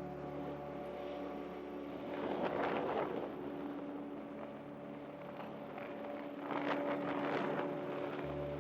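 Air rushing over the microphone in swells during a paraglider flight, over a steady, sustained drone of ambient background music whose low notes change near the end.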